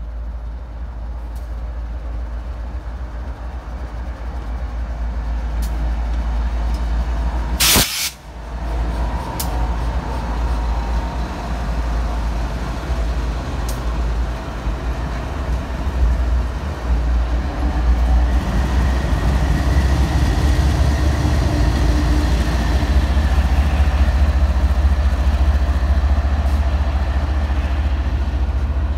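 BNSF diesel freight locomotives passing close by, then double-stack intermodal container cars rolling past with steady wheel-on-rail noise over a heavy low rumble that grows stronger in the second half. A single sharp knock about eight seconds in.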